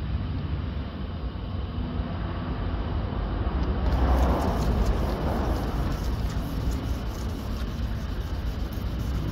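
Hand wet-sanding of a car door's painted panel with a sanding pad: a soft rubbing hiss from about four seconds in, over a steady low rumble.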